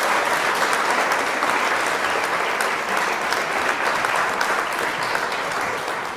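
Audience applauding steadily: a dense patter of many hands clapping, easing slightly toward the end.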